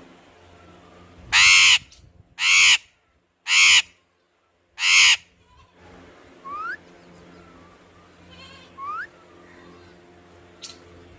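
Parrot giving four loud, harsh squawks about a second apart, then a few short, quieter whistles that rise in pitch.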